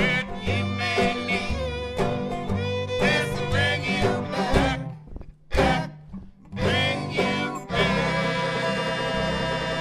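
String band of clarinet, resonator guitar, upright bass, banjo and fiddle playing a song live. The music stops short twice in quick succession near the middle, then the band holds a long closing chord from about eight seconds in.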